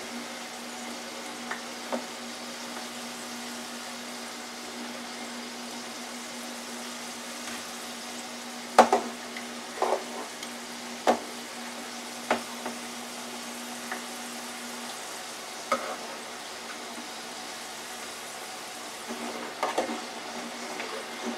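Hot oil sizzling steadily in a small electric deep fryer, with metal tongs clicking and knocking against the fryer basket about a dozen times as sweet potato fries are lifted out. A faint low hum stops about two-thirds of the way through.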